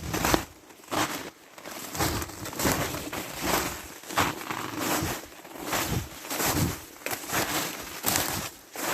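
Footsteps crunching through frozen forest floor, about two steps a second at a steady walking pace.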